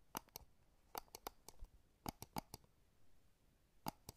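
Sharp clicks in small groups of two or three, about four groups roughly a second apart, over faint room hiss.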